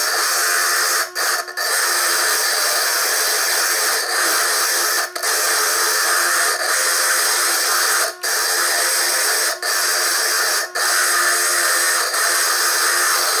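Core drill spinning in a Foredom bench lathe, grinding a wet, hard stone into a sphere: a steady high-pitched grinding hiss that breaks off for an instant about six times. The audio is sped up threefold with the picture.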